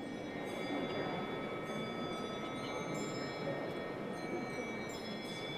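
Bells ringing: several struck tones, each starting sharply and ringing on, about four strikes over the few seconds. Underneath is a low murmur of visitors' voices in a large echoing stone interior.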